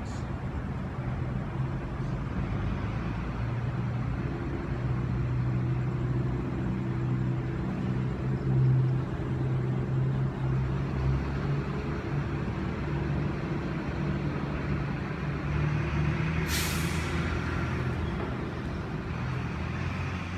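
A large vehicle's engine idling with a steady low hum, with a short sharp hiss of air about sixteen seconds in.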